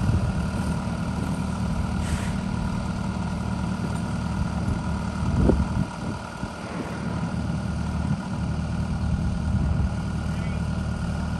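A heavy engine running steadily at a low idle-like drone, with a single louder knock about five and a half seconds in.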